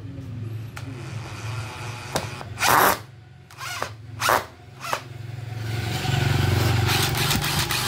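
Small cordless screwdriver driving a screw into a wooden board: its motor and gears whir with a steady hum. There are several short louder bursts a few seconds in, then a longer, louder run over the last two seconds or so.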